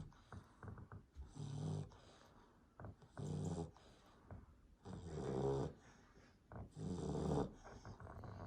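A 12-week-old American Staffordshire Terrier puppy snoring in its sleep: four rough snores about every two seconds, the last two the loudest.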